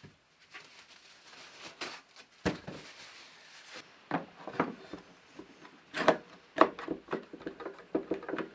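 Wood and tools being handled on a workbench: irregular knocks, clatter and rubbing scrapes, busier and louder in the second half.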